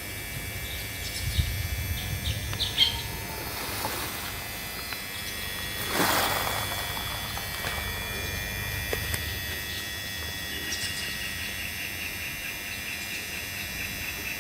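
Baya weavers chirping: short chirps a couple of seconds in, then a fast chattering run of repeated notes from about two-thirds of the way through. A steady high background hum runs underneath, and a brief rushing swell comes around six seconds in.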